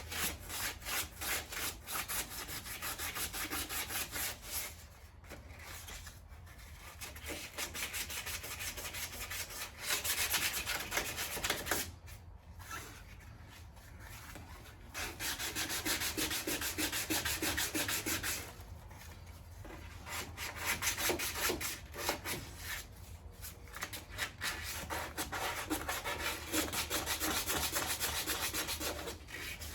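Sandpaper rubbed back and forth by hand over a car's body panel, in quick, even strokes, stopping briefly several times before starting again.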